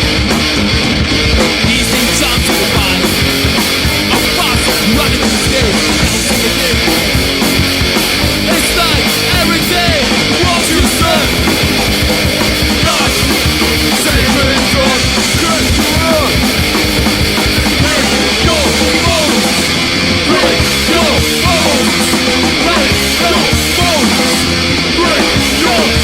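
Hardcore punk band playing: distorted electric guitars, bass and a pounding drum kit, loud and continuous.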